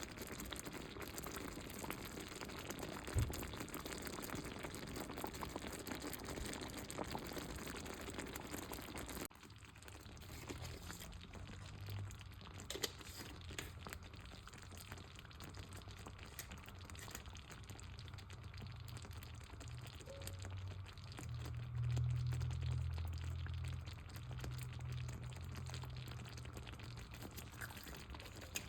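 Meatballs frying in oil in a skillet, a steady sizzle. It cuts off abruptly about nine seconds in and gives way to a quieter low hum that grows louder for a few seconds later on.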